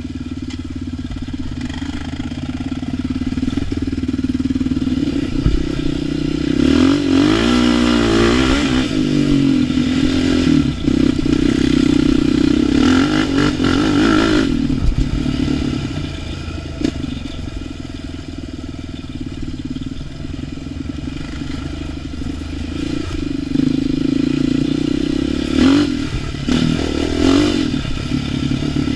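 ATV engine running on a trail ride, its throttle repeatedly opened and eased off so the engine note rises and falls, with the biggest revs about a third of the way in, just before the middle and near the end.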